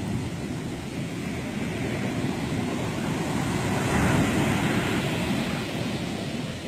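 Ocean surf breaking on a sandy beach, a steady roar with wind on the microphone; a wave crashes louder about four seconds in.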